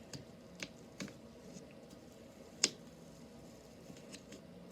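Homemade slime being handled and squeezed, giving a few faint sticky clicks and pops, the sharpest about two and a half seconds in.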